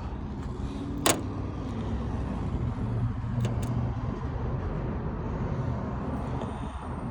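Steady low mechanical rumble with a hum. There is one sharp click about a second in and two faint clicks a little past three seconds.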